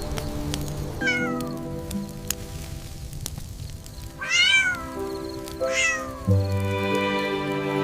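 A cat meowing three times in high, gliding calls, the loudest about halfway through, over soft sustained background music that swells near the end.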